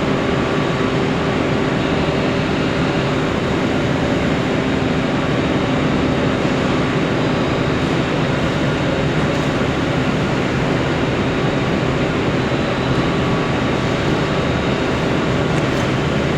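Plywood factory machinery running steadily: a loud, continuous mechanical noise with a constant hum.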